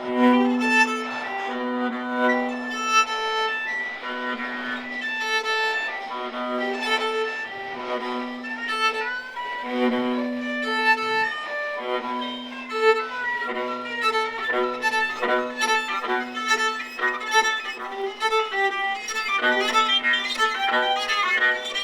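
Contemporary chamber music for viola and baritone saxophone: one low note held in long stretches of a couple of seconds each, under a busy run of short higher notes that grows denser near the end.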